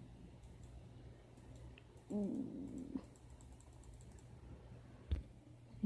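Faint clicking on a laptop: scattered light key and button clicks, with a quick run of ticks about a second and a half in and one sharp click near the end. A brief hummed voice sound comes about two seconds in.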